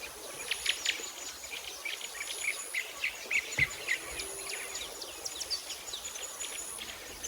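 Small birds chirping in the background: many quick, irregular chirps over a steady high-pitched insect-like hum, with a single soft knock about halfway through.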